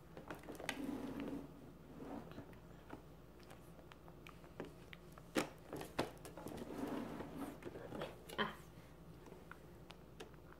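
Faint wet sucking and smacking from a baby mouthing and gumming a fresh strawberry, with a few sharp mouth clicks scattered through.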